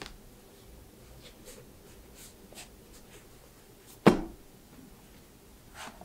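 Quiet handling of books, with faint paper-and-cover rustles and one sharp thump about four seconds in.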